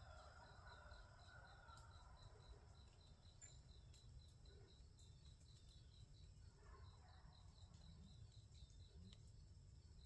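Near silence, with an insect chirping faintly in a steady high pulse about four or five times a second, over a low rumble.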